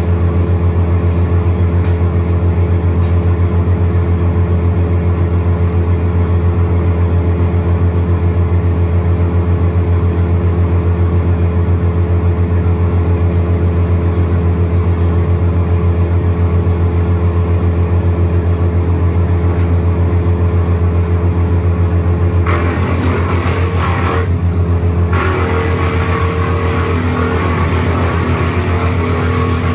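Wood chipper's engine running steadily at high revs. About three-quarters of the way through the sound turns rougher and noisier, and the engine note shifts slightly.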